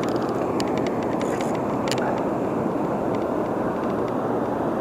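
Steady rush of water spilling from a dam into the tailwater pool, with a few faint clicks on top.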